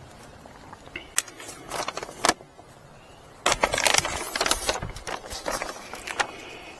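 Handling noise: a few sharp clicks, then, about halfway through, a second or so of dense rattling and clinking, the loudest part.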